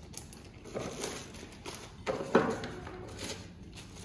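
Faint rustling and crinkling of a clear plastic sleeve as it is handled, with two louder rustles, one about a second in and one just past two seconds.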